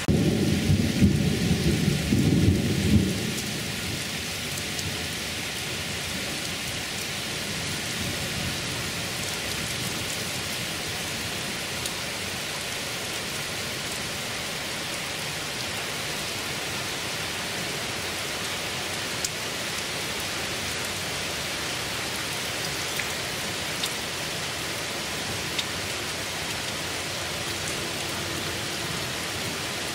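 Heavy rain pouring steadily in a thunderstorm, with a roll of thunder rumbling loudly for the first three seconds before dying away under the even hiss of the rain.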